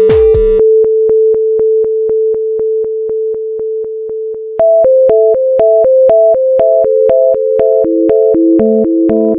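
Electronic synthesizer music: a held note pulsed by a steady ticking beat, then about halfway through a repeating two-note figure comes in, with lower notes joining near the end.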